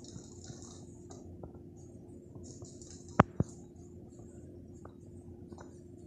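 A kitten batting a small ball about on a tiled floor: light taps and scrapes, with two sharp knocks close together about three seconds in, under a steady low hum.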